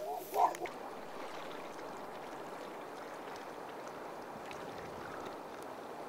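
Steady wash of river water around a sea kayak moving on the current, after a dog's short barks in the first half-second.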